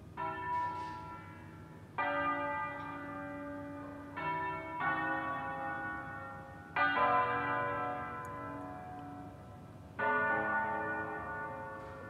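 Church bells of the Basilica of Sant'Alessandro in Colonna, played in concerto style: six single strokes on bells of different pitches, each ringing on and fading, at uneven intervals of about one to three seconds, making a slow melody. The first stroke comes just after a quiet spell.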